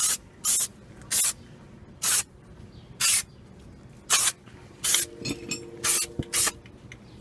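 Aerosol brake cleaner sprayed onto a disc brake rotor in short spurts, about nine quick hissing bursts with brief pauses between them.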